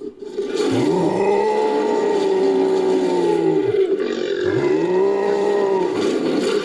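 Designed creature roar built from lion roar recordings and a human voice: two long, pitched roars in a row.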